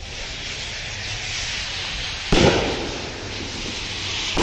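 Two firecracker bangs about two seconds apart, the first a little past halfway and the second right at the end, each ringing briefly, over a steady background hiss.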